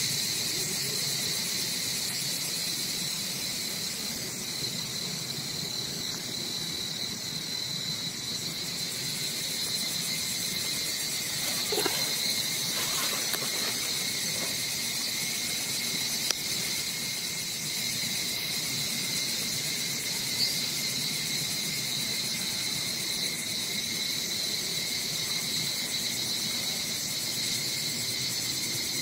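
Steady chorus of insects, a constant high-pitched drone at two pitches, with a few faint clicks.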